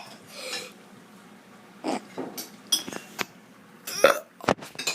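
Short, scattered mouth and throat noises, the loudest about four seconds in, with a few thin clicks and a sharp tap just after the loudest one.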